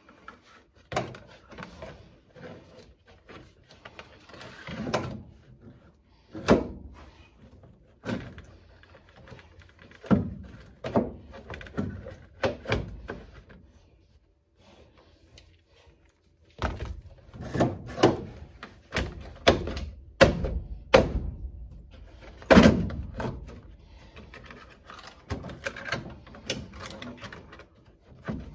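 Irregular knocks, thumps and clunks of parts being handled and fitted inside a car's interior, with a quieter lull about halfway through.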